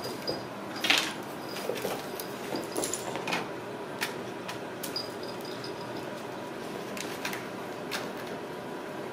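Ragdoll kittens playing: scattered clicks, knocks and scrabbling of paws and claws on tile and a cardboard scratcher, with toys clattering, the loudest knock about a second in. A faint high ring comes twice.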